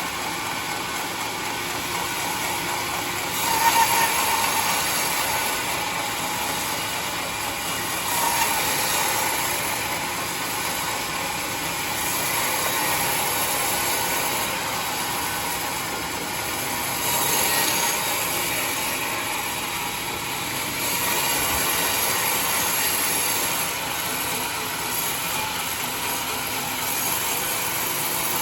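Homemade band sawmill running and cutting through a large trembesi log: a steady harsh machine noise that swells louder several times, most sharply about three and a half seconds in.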